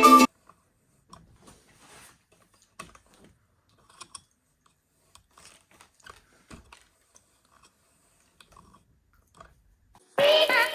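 Background music stops just after the start; then only faint, scattered small clicks and taps until the music starts again near the end.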